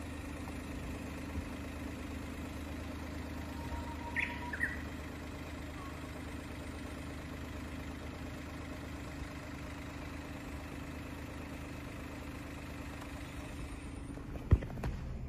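Steady low hum of a car engine idling, with a few short bird chirps about four seconds in and a single sharp knock near the end.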